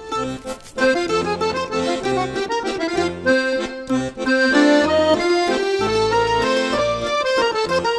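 Instrumental background music: a melody of held notes over a bass line that repeats in short, regular steps.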